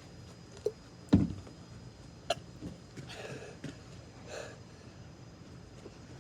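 A person gulping soda from a can, with short swallowing sounds and breaths. A sharp knock comes about a second in.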